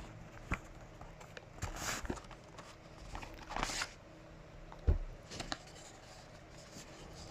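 Hands handling a phone case and its packaging: two short rustles of packaging sliding or crinkling, several light taps and clicks, and one sharper knock about five seconds in.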